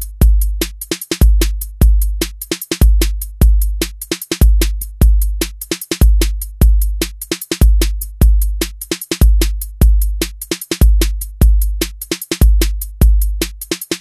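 Programmed drum-machine pop groove at 150 beats per minute, looping steadily: long, deep bass kicks under fast, sharp hi-hat ticks and snare hits, with the same pattern repeating about every bar.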